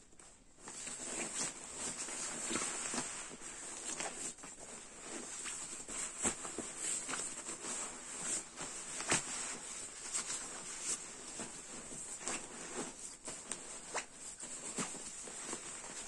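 Crinkling and rustling of a goose-down sleeping bag's thin 20D polyester shell and its nylon compression sack as the bag is pulled out of the sack and bunched up by hand. Steady swishing with many short crackles throughout.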